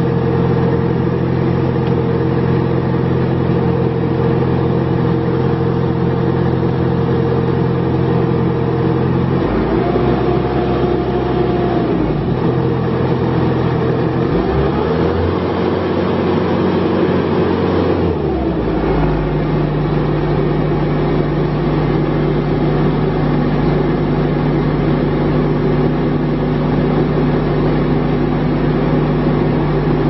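Bobcat T590 skid steer's diesel engine running steadily at idle. About nine seconds in it is throttled up, and its note shifts and wavers for several seconds while the tach reads about 2,730 rpm. Near 18 seconds in it settles into a new steady note.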